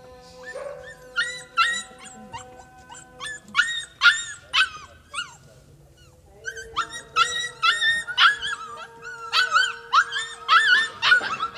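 Siberian husky puppies whining and yipping together in short, high cries that rise and fall, coming in clusters with a brief lull about halfway through.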